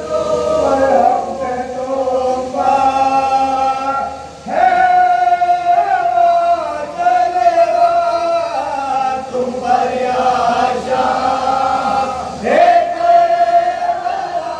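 A group of men chanting a Shia Muharram salwat in unison into microphones, in slow phrases held on long notes. New phrases swell in about four and twelve seconds in.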